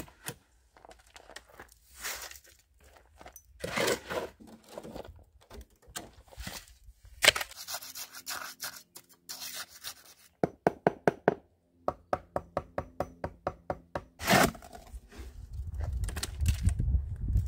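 Wet concrete being shoveled from a steel wheelbarrow into a wooden footing form: scattered scrapes and thunks of the shovel and wheelbarrow, with two runs of quick, even taps in the middle and a low scraping rumble near the end.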